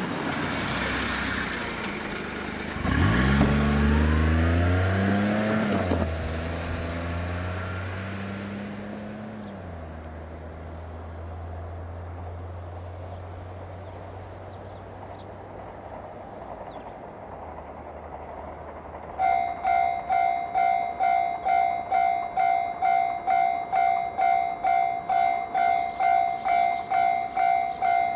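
A motor vehicle's engine runs in the first few seconds, its pitch rising and then settling into a low steady hum. About two-thirds of the way in, a Japanese railway level-crossing alarm starts clanging, about two strikes a second, warning of an approaching train.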